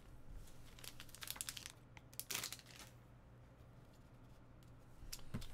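Plastic shrink-wrap on a trading card box crinkling and tearing as it is pulled off by hand: a cluster of short crackles, then a louder tear a little past two seconds in.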